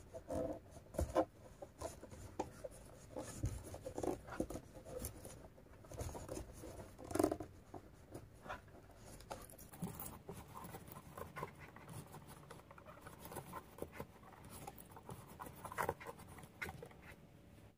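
Crochet hook working twisted macramé cord, stitch after stitch in single crochet: soft, irregular scratching and rustling with small clicks, one a little louder about seven seconds in.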